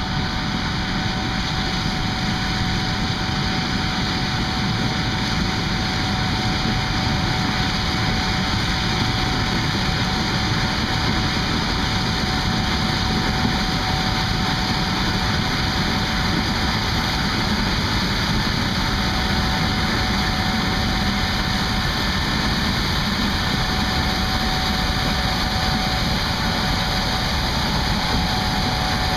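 Gleaner S78 combine running steadily in a cornfield, its engine and threshing machinery making an even mechanical noise with a steady whine over it.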